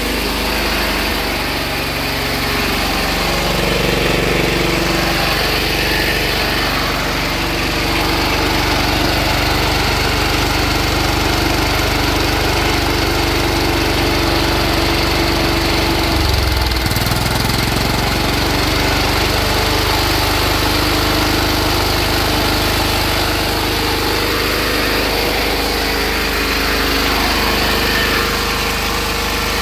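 High-compression (18.6:1) diesel engine converted to run on wood gas, running steadily on its test stand. Its note shifts briefly about 16 to 17 seconds in, then settles again.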